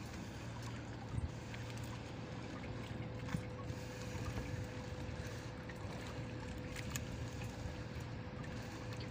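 Fishing net being hauled by hand into a small outrigger boat, with a few faint knocks, over a steady low hum carrying a faint whine held on one note.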